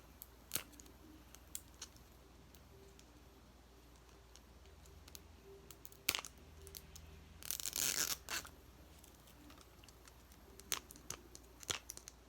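Plastic wrapping being picked at and torn off a small toy capsule by hand: scattered light clicks and rustles, with a louder crinkling tear from about seven and a half to eight and a half seconds in.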